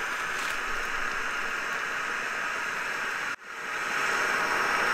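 Fire Maple Fixed Star X2 gas canister stove burning at full flame, a steady loud hiss like a jet, under a pot of water that has come to the boil. The sound drops out for an instant about three and a half seconds in, then carries on slightly louder.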